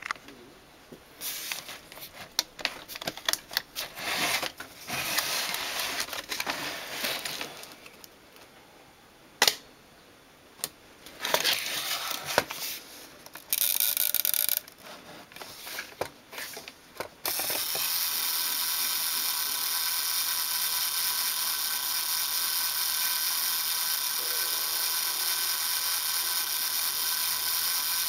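Polaroid 430 camera's built-in mechanical development timer: clicks and rattles as its START dial is handled and wound, then, about 17 seconds in, the timer starts and runs with a steady whir.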